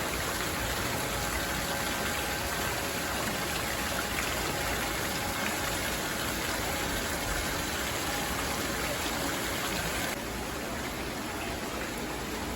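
Steady rushing of running water, even and unbroken, dropping slightly in level about ten seconds in.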